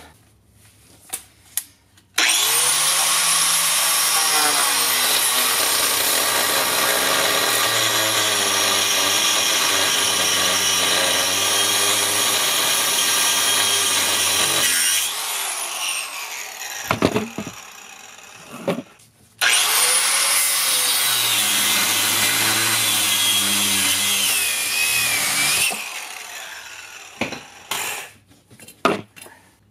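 Handheld grinder with a cutting wheel running in two long passes, each starting with a rising whine as it spins up, cutting through a seized leaf-spring mounting bolt that won't come out. A few sharp metal knocks come between the passes and near the end.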